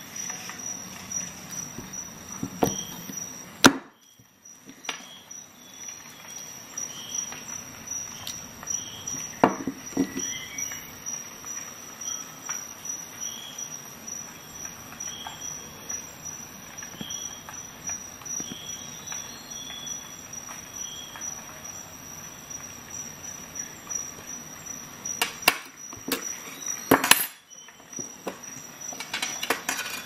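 Small metal clicks and knocks as the steel parts of a Victorinox Rescue Tool are handled and worked loose: the glass-breaker insert and the windscreen-saw blade.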